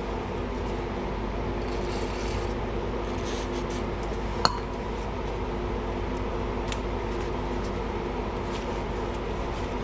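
An aerosol cleaner spray can hissing in two short bursts onto a greasy brake caliper part, about two and three seconds in, over a steady hum. A single sharp click comes about four and a half seconds in.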